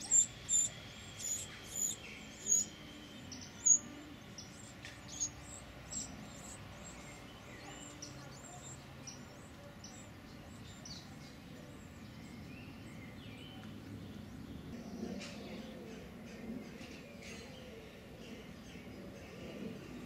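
Winter wren nestlings begging for food: a run of sharp, high-pitched cheeps, about eight in the first six seconds and loudest in the first four, then only faint scattered chirps.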